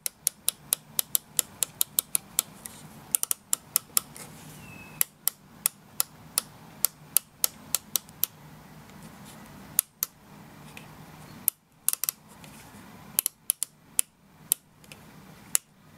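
Sharp clicks at an irregular pace, up to about three a second with a few short pauses, over a faint steady low hum.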